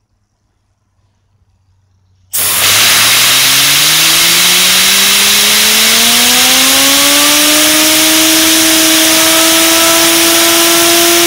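A loud hiss of compressed air from an air-compressor nozzle starts suddenly about two seconds in, blowing on a fidget spinner. Under the hiss, the spinner's bearing whine climbs steadily in pitch as it speeds up, then levels off at a high steady whine. The air cuts off abruptly at the end.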